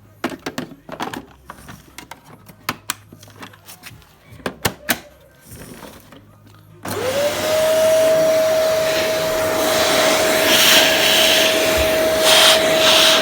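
A series of scattered clicks and knocks, then about seven seconds in an LG vacuum cleaner is switched on: its motor whine rises quickly and settles into a steady high tone over loud rushing air.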